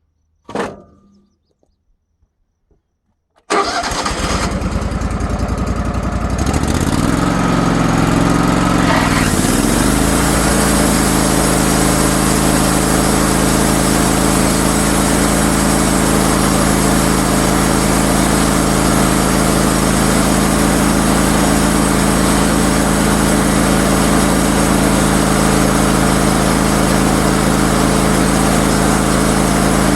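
Wood-Mizer sawmill's motor starting up abruptly about three and a half seconds in, its pitch wavering for a few seconds before it settles into a steady, loud run. A brief sharp sound comes just before, under a second in.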